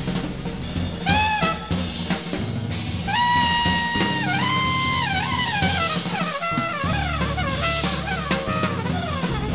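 Improvised jazz trio of trumpet, bass and drum kit. The trumpet smears upward about a second in, holds a long high note about three seconds in, then bends and runs downward over busy drums and bass.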